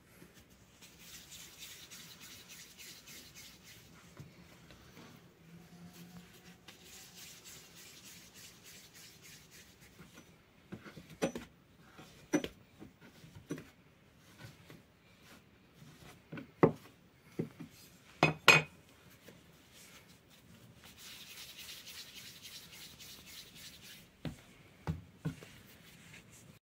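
Hands working soft yeast dough on a floured wooden board: soft rubbing and stretching of the dough, with a few sharp knocks on the board in the middle, the loudest two close together near the end of that stretch.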